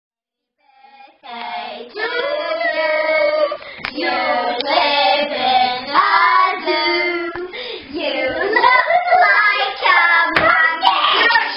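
Several young girls' voices singing and chattering together, with a few sharp claps or knocks.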